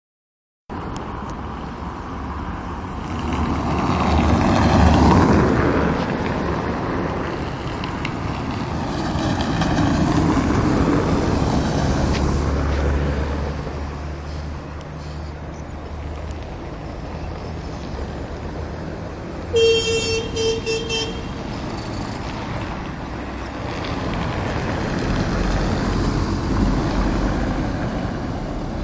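Street traffic: vehicles passing with a swelling engine and tyre rumble. About two-thirds of the way through, a car horn sounds in a few short toots.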